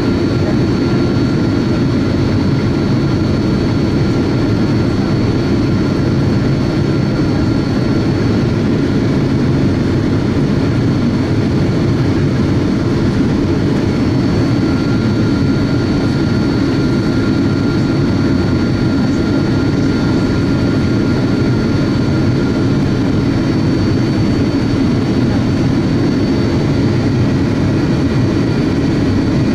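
Boeing 777 cabin noise on approach to landing: a steady rush of jet engines and airflow, with two thin steady whines above it.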